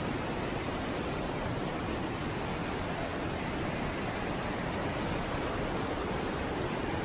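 Small mountain waterfall: water rushing in a steady, even noise with no breaks.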